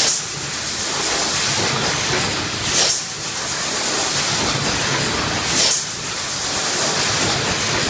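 Keenpro EM08S1 eight-cavity PET stretch blow molding machine running, with a short, loud hiss of compressed air vented about every three seconds, once per blow cycle, over a steady machine noise.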